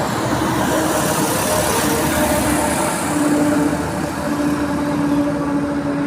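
Motor vehicle running with steady engine and road noise and a held low hum, the hum growing stronger about three seconds in.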